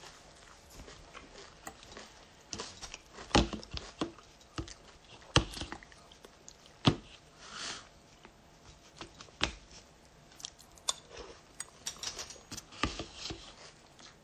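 A person eating cereal with a spoon close to a phone microphone: scattered clicks of the spoon against the cup and short crunches of chewing, a few sharper knocks standing out every second or two.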